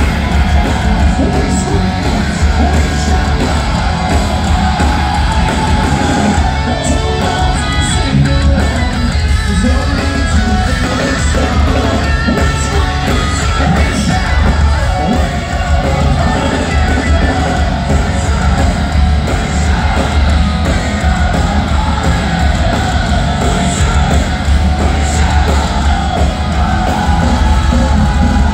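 A loud live heavy metal band playing, with distorted guitars, heavy drums and bass, and sung and shouted vocals, heard from within the audience in a large hall.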